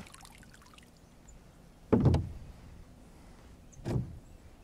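Two knocks against the fishing kayak as the angler moves about: a loud one about two seconds in, then a lighter one about two seconds later, after a sharp click at the start.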